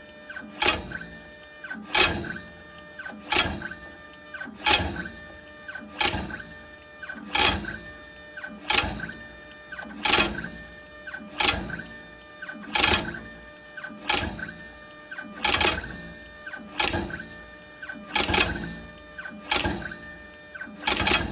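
Godex ZX1300i thermal transfer printer feeding labels while the ZX1000i cutter stacker cuts each one. A steady motor whir builds to a sharp cut about every second and a third, in an even repeating rhythm.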